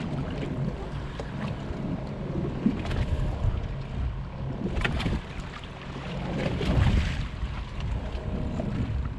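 Wind buffeting the microphone, with water lapping and slapping against the hull of a small boat drifting at sea, and a few short knocks.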